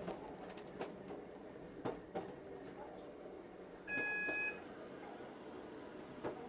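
Quiet running noise inside a moving train carriage, with scattered clicks. About four seconds in there is a single electronic beep, two pitches sounding together for under a second.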